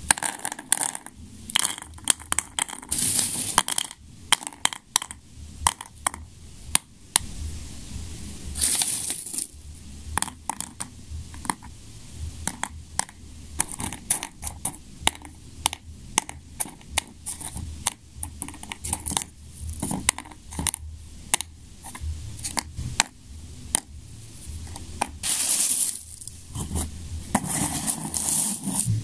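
Small, hard firework stars dropped one by one into paper shell hemispheres, each landing with a sharp click in an irregular run of dozens of clicks, with now and then a brief rustle of paper.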